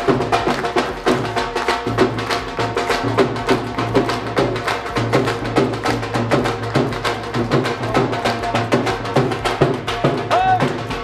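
Bhangra music driven by a dhol drum beating a fast, steady rhythm.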